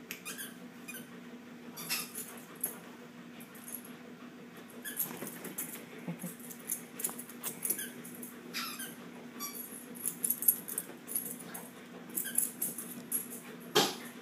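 Shih Tzus play-wrestling: scattered short squeaks and scuffles come at irregular moments over a steady low hum. A sharp knock near the end is the loudest sound.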